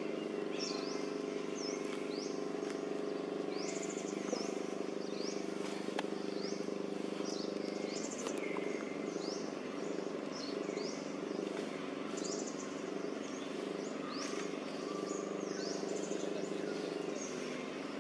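Birds calling outdoors with many short, repeated rising chirps, over a steady low hum.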